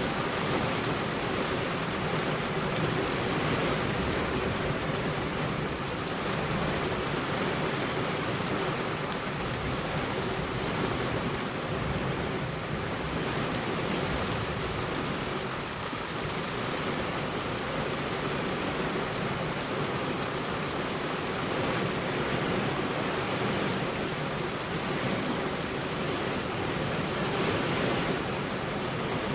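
Heavy rain falling steadily on a road, a constant, even hiss of rain with no thunder.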